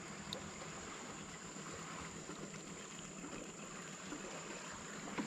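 Faint river ambience: a soft steady hiss of water around a small moored boat, with a thin constant high tone over it.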